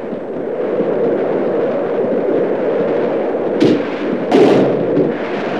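Travelling post office train running at speed, a steady rushing noise, with two sharp bangs near the end as mail pouches strike the lineside and carriage nets of the mail-bag exchange apparatus.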